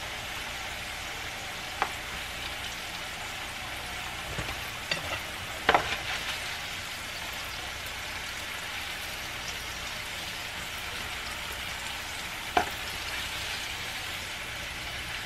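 Oil sizzling steadily on a griddle as filled tortillas fry in it, with a few short clicks and knocks of a fork and spatula against the pan, the sharpest about six seconds in.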